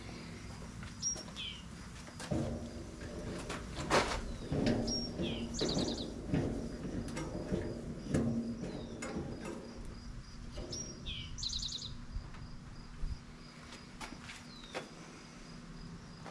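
Crickets chirping steadily and a songbird repeating a short phrase of a chirp, a falling note and a quick trill. In the middle come low knocks and rattling, as of the solar cooker being handled and adjusted.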